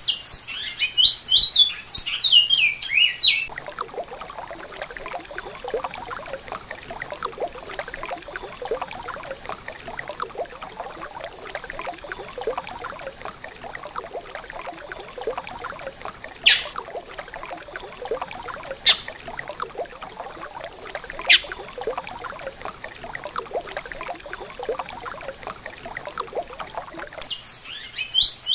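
Large-billed seed finch (bicudo) singing quick whistled phrases that swoop up and down, for the first few seconds and again near the end. Between them runs a long stretch of steady rushing, crackling noise, broken by three sharp clicks.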